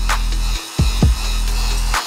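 Electronic background music with a deep, steady bass and a kick drum.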